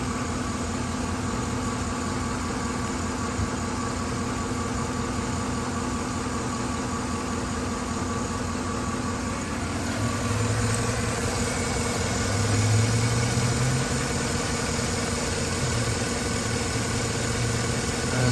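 Chevrolet Silverado 5.3L V8 idling with an active misfire on cylinder 3. The running grows somewhat louder about ten seconds in.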